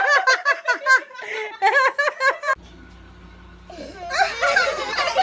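A person laughing hard in quick, high-pitched bursts. It cuts off abruptly about two and a half seconds in, leaving a low steady hum, and laughter comes back about a second later.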